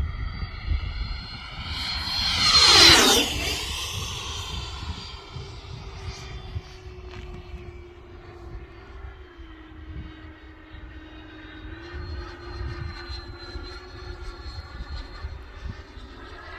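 Electric radio-controlled model airplane making a fast low pass about three seconds in: its motor whine swells to its loudest and drops sharply in pitch as it goes by, then carries on fainter at a steadier pitch. Wind rumble on the microphone underneath.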